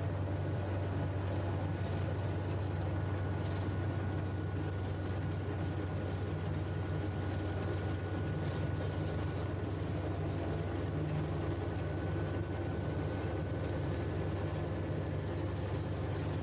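EMD GP-series diesel-electric locomotive's engine roaring steadily at full throttle in notch 8. It makes a deep, even drone with a faint steady whine above it.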